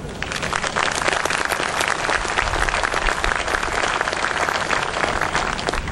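Audience applauding: many hands clapping together, starting a moment in and holding steady.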